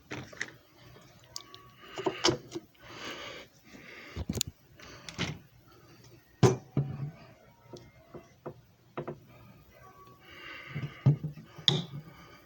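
Irregular clicks, knocks and short rustles of things being handled, with no motor running. The loudest knocks come about two, six and eleven seconds in.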